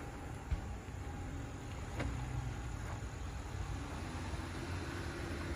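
Jeep Gladiator pickup's engine running low and steady as the truck pulls slowly over a dirt mound off-road. A single short knock about half a second in.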